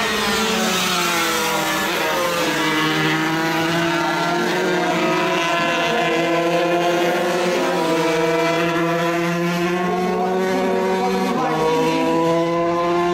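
Engines of 125cc racing motorcycles running at high revs on track, more than one engine heard at once. The pitch falls over the first two seconds or so, then holds high with small rises and dips, and changes suddenly about eleven seconds in.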